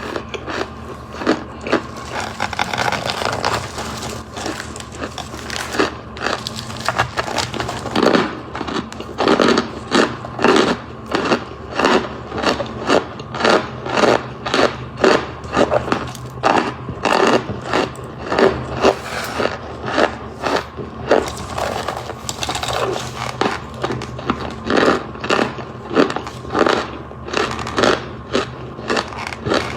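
Freeze-dried marshmallows crunching again and again, about two crunches a second, dry and crackly.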